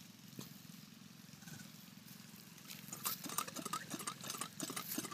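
Cast-iron hand pump clanking as its handle is worked, in irregular metal knocks that start about three seconds in and grow louder, over a low steady hum.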